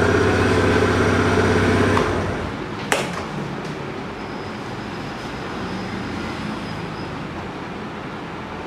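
Suzuki Address V50's 49cc fuel-injected engine idling steadily, then switched off about two seconds in. About a second later a single sharp click comes as the seat is opened, then a faint steady hiss.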